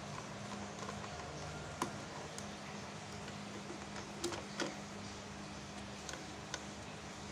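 Plastic toy knife tapping and scraping on a plastic toy crab: a few scattered light clicks, the sharpest about two seconds in and two close together around four and a half seconds.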